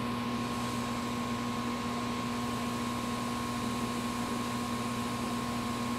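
Steady hum with a few constant tones, a low one and one higher up, over an even hiss.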